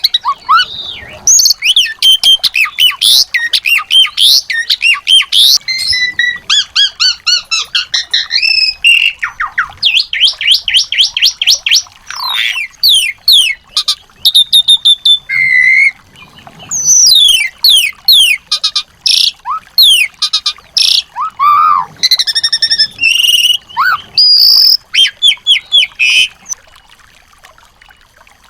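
Small songbirds singing in a rapid, varied stream of chirps, fast trills and whistled sweeps, with short breaks between phrases. The song stops about two seconds before the end.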